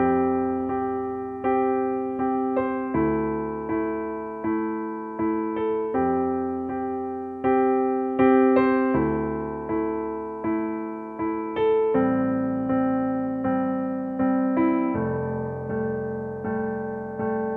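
Background piano music: a slow run of single struck notes and chords, each fading away before the next.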